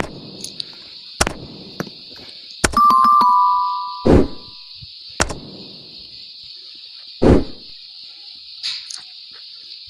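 Steady high-pitched insect chirring, with about eight sharp thumps or knocks scattered through it. About three seconds in, a brief ringing chime of a few close tones sounds for nearly two seconds.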